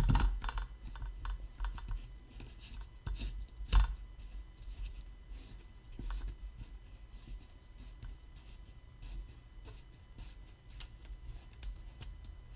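Plastic clicks, knocks and scraping as a Dremel 3000 rotary tool, not running, is fitted into the plastic cradle of a Dremel 220-01 Workstation drill-press stand. The handling is busiest in the first few seconds, with the loudest knock about four seconds in, then thins to scattered light clicks.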